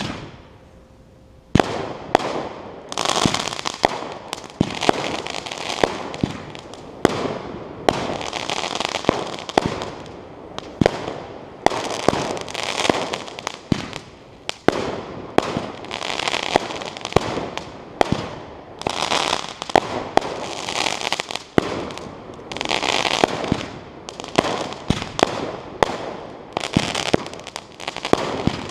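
A 19-shot consumer firework barrage cake firing shot after shot. It starts about a second and a half in, with a sharp bang roughly every second and a quarter. Each bang is followed by about a second of crackling hiss from the bursting stars.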